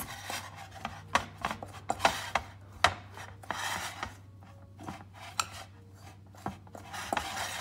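Fork scraping through crumbly flour-and-egg dough in a glass mixing bowl: irregular rasping strokes with sharp clicks of the tines against the glass.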